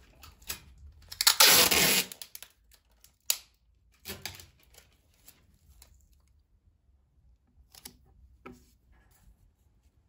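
Loose book pages being handled on a dresser top: a long paper rustle about a second in, then a sharp click and a shorter rustle, and a few light taps near the end.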